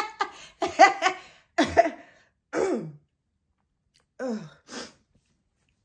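A woman laughing in a few short bursts whose pitch drops each time. After a second's pause come two more brief falling bursts near the end.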